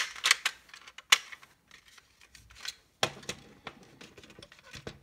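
Plastic clicks and knocks as the body of a OO gauge model railway coach is pressed and worked back onto its chassis by hand. A few sharp clicks come in the first second, then a quieter spell, then lighter clicks and handling noise from about three seconds in.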